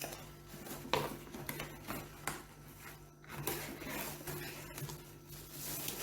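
Parts and packaging of a wax warmer being handled during unboxing: scattered light clicks and knocks.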